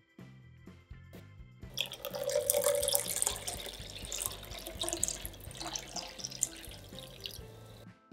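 Milk poured from a glass jug into a plastic blender jar, splashing onto the eggs and condensed milk inside. The pour starts about two seconds in and tails off near the end, over quiet background music.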